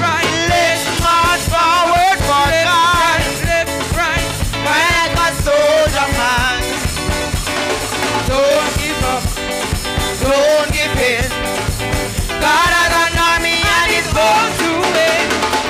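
Gospel chorus sung by church singers over instrumental backing, with a drum keeping a steady beat.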